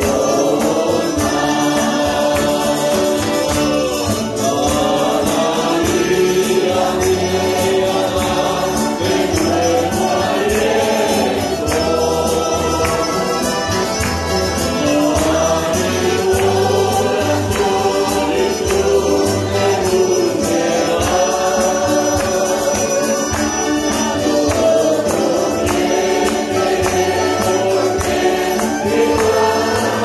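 A church congregation and choir singing a Spanish hymn together, accompanied by strummed acoustic guitars, mandolins and an accordion. The singing and playing run on without a break at a steady beat.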